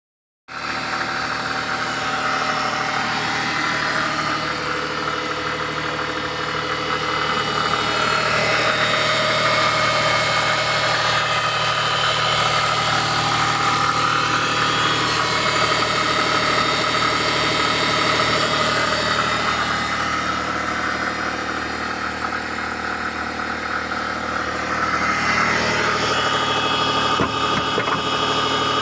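Mazda MX-30 R-EV's 830 cc single-rotor Wankel range-extender engine running steadily while it drives its generator. It starts abruptly, eases off slightly for a few seconds, and picks up again near the end.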